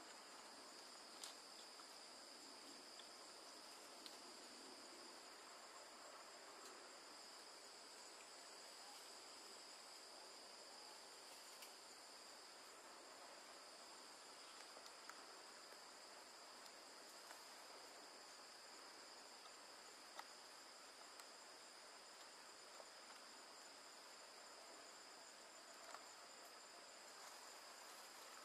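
Faint, steady, high-pitched chorus of insects, a continuous trilling drone with no break, with a few faint clicks scattered through.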